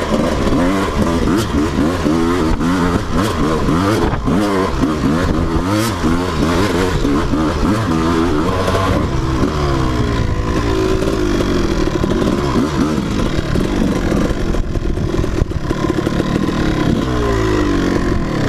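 Dirt bike engine revving up and down over and over as it is ridden over rough trail, with a steadier stretch in the middle. The revs drop off near the end as the bike slows to a stop.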